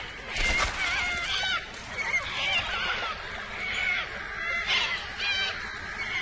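A flock of little corellas screeching, harsh rasping calls following one another every half second or so. A brief burst of splashing comes about half a second in.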